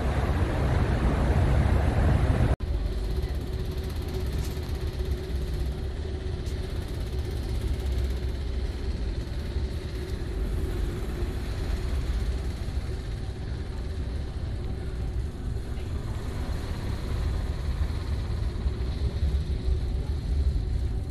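Strong storm wind buffeting the microphone on an open ferry deck. It cuts off abruptly about two and a half seconds in, giving way to the steady low drone of the ship's machinery heard inside the passenger lounge, with a faint steady hum over it.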